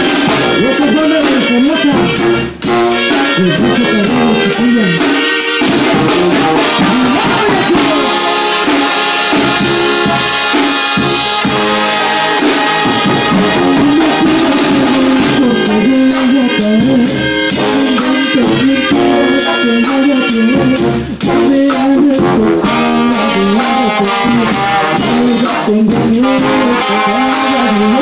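Live Mexican banda playing: trumpets and trombones over tuba and drums, with two brief breaks in the music, about two and a half seconds in and again about twenty-one seconds in.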